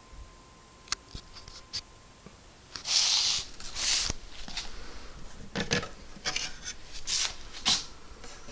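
Handling noise: soft rubs and rustles with scattered clicks. Two louder rustles come about three and four seconds in, and several more in the second half.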